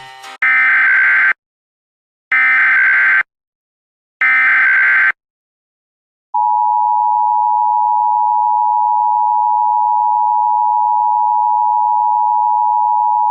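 Emergency Alert System SAME header: three bursts of digital data screech, about a second each with short gaps, encoding a severe thunderstorm warning. From about six seconds in comes the steady two-tone EAS attention signal, held without change.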